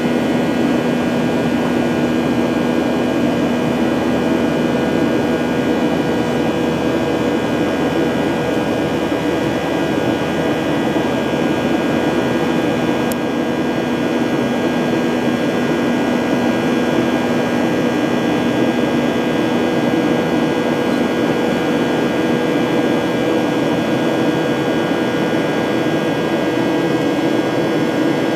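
Boeing 737-900ER's CFM56-7B jet engines and airflow heard inside the cabin: a steady loud rush with several fixed humming tones. A low hum among them drops out about six seconds in.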